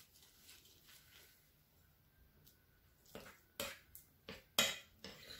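A quick run of light clinks and knocks, the loudest about four and a half seconds in, from a metal spoon and a ceramic mixing bowl being handled.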